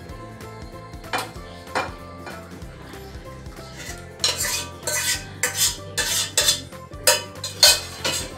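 A stainless-steel pot clinks twice against metal. About four seconds in comes a quick run of loud scrapes as the stew is scraped out of the pot onto a plate.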